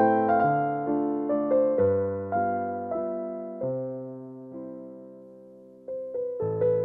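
Background piano music: a slow melody over chords, with one chord left to die away for a couple of seconds before the playing picks up again near the end.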